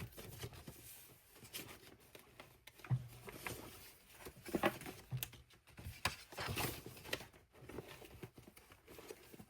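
Paper and cardstock being handled and shuffled on a craft table: scattered light rustles and soft taps.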